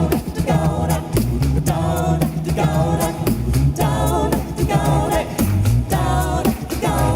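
A cappella vocal group singing in harmony over a low sung bass line, with mouth-made percussion keeping a steady beat.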